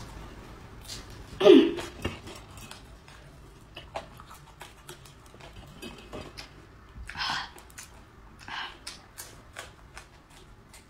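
Close-up chewing and crunching of raw red chili peppers, a run of small crisp crunches and mouth clicks. About a second and a half in comes a brief, loud vocal sound, and around seven and eight and a half seconds two short breathy hisses.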